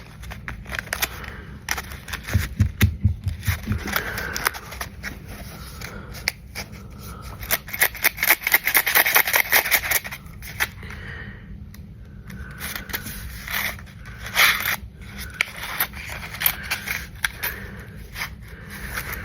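Pennies clicking and scraping against each other as they are handled and counted, a quick irregular run of small metallic clicks that gets densest about eight to ten seconds in.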